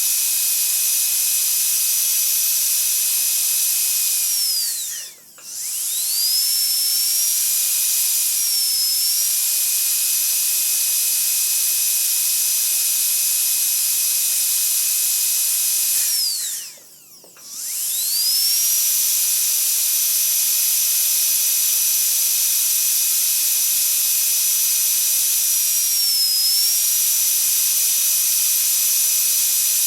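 Dentist's high-speed drill whining at a high pitch over a hiss. Twice it spins down to a stop and quickly winds back up, and twice its pitch briefly dips.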